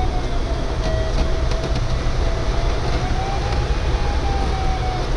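Steady rush of air around a DG505 glider's cockpit canopy, with a low rumble, and over it the variometer's continuous audio tone, its pitch drifting slowly down, then up, then down again as the climb or sink rate changes.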